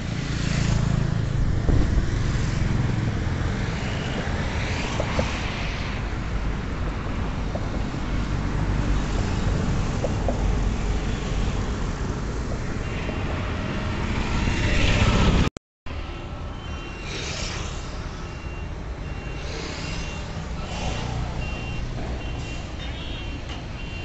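Heavy vehicles and traffic running, a steady engine rumble with vehicles swelling past now and then. In the second half a reversing alarm sounds in short repeated beeps. The sound cuts out for a moment about two-thirds through.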